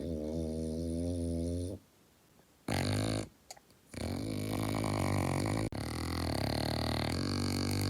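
French bulldog snoring: a long snore, a short one about three seconds in, then a long drawn-out snore from about four seconds on.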